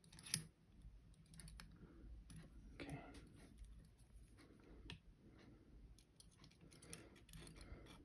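Faint small metallic clicks and scrapes of lever-lock picking tools working inside a lever padlock as the bolt stump is put under tension again and the wire set at the back levers, with one sharper click just after the start.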